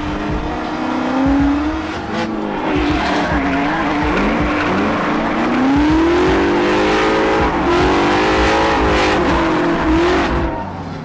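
Drift car engines revving hard and bouncing up and down in pitch while the tires squeal and skid through a tandem slide. The revs climb in the middle and ease off just before the end.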